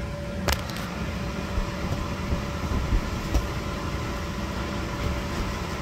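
Electric blower of an inflatable bounce house running, a steady low drone with a faint constant hum above it. A single short click about half a second in.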